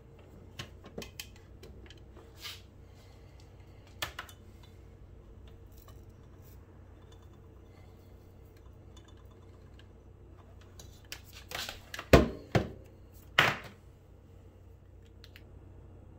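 Scattered light clicks and knocks of small kitchen items being handled, with a short run of louder knocks and a clatter about twelve to thirteen and a half seconds in.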